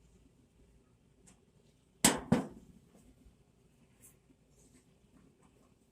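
Two sharp knocks a third of a second apart about two seconds in, each with a short ringing tail, and another right at the end, from tools or parts being handled and set down while a clothes dryer is taken apart; faint small clicks in between.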